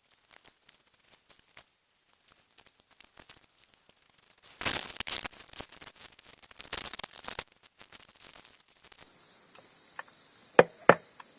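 Small handling noises and rustling from hand work, with two louder scraping, rustling bursts about midway, then crickets chirping steadily and a few sharp knocks near the end, the knocks being the loudest sounds.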